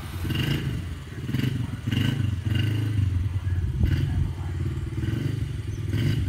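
Small kids' dirt bike engine running, its revs rising and falling as it is ridden slowly.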